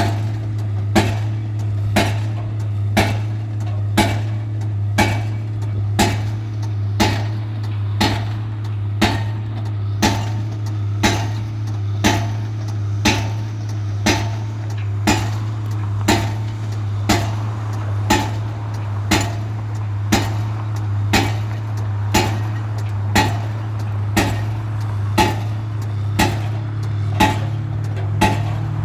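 Pile-driving hammer striking a pile at a steady rate of about one blow a second, each blow a sharp clang, over the steady drone of an engine.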